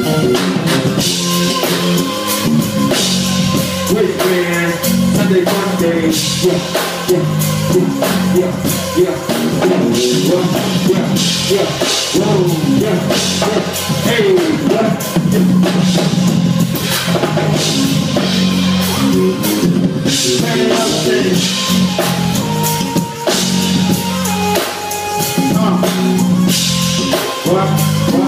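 Live band playing: drum kit, a bass line and keyboards, with a man singing over them.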